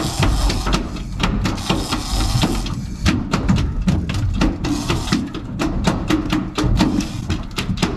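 Background music with a percussive, clicky beat.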